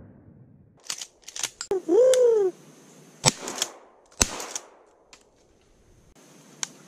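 Two sharp shotgun shots about a second apart, preceded by a few lighter clicks and a short call that rises and falls in pitch.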